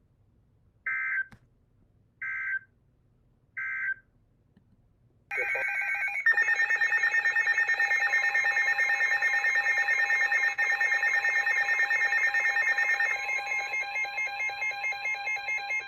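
Emergency Alert System tones: three short data-tone bursts, the end-of-message code closing a severe thunderstorm warning. About five seconds in the next alert starts with a brief data burst, then a loud, steady attention signal.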